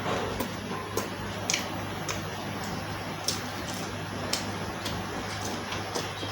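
Close-miked chewing of fried food, with sharp crunchy and wet mouth clicks about once a second over a steady low hum.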